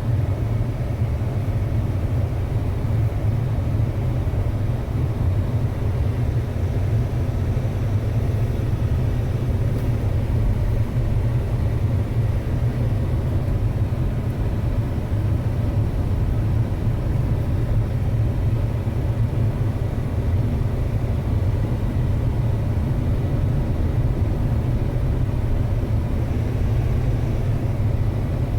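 2006 Ford Expedition driving, a steady low rumble of engine and road noise that does not change.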